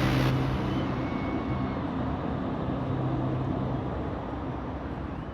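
Road traffic noise: a steady rumble of passing motor vehicles with a low engine hum, slowly fading.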